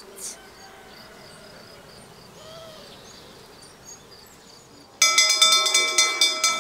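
Quiet outdoor ambience with faint high chirps, then about five seconds in a wall-mounted brass school bell starts ringing, struck rapidly over and over by its pull rope so that the rings run together.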